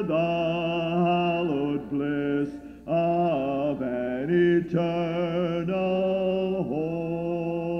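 Voices singing a hymn a cappella, without instruments, in long held notes with short breaks between phrases.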